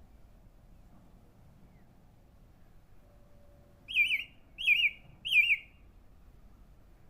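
A bird calling three times in quick succession, each a short, wavering whistled note, starting about four seconds in.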